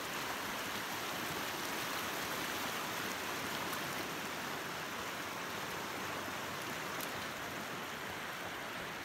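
Steady rushing of water, an even hiss with no distinct splashes standing out.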